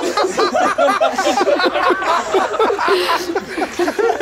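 Several people laughing at once, their laughs overlapping without a break.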